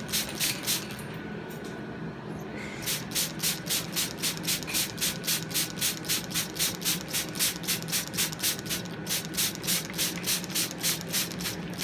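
Hand trigger spray bottle squirting water in quick, even strokes, about four hisses a second, with a pause of about two seconds a second in.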